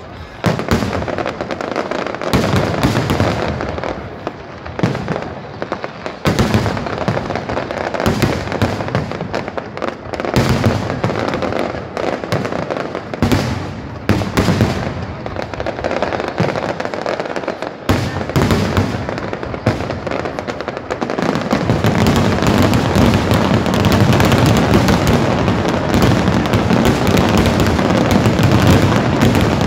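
Aerial firework shells bursting one after another, many separate loud bangs. About two-thirds of the way in, they run together into a dense, continuous, louder barrage of bursts.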